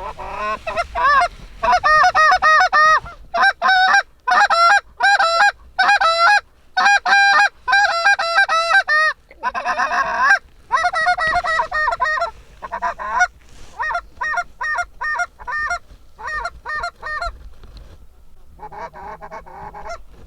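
Goose honks and clucks in quick series, loud and close, with brief pauses; the calling grows sparser in the second half.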